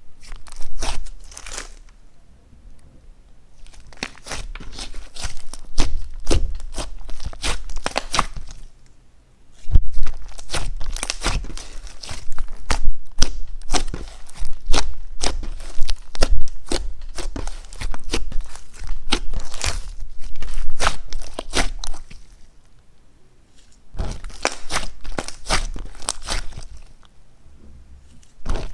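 Slime being stretched, folded and poked by hand, giving runs of sticky pops, clicks and crackles, broken by short pauses between handlings.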